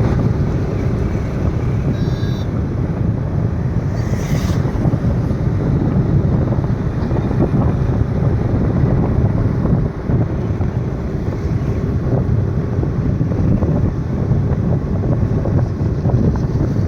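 Wind buffeting the microphone, a steady low rumble, with a brief faint high chirp about two seconds in.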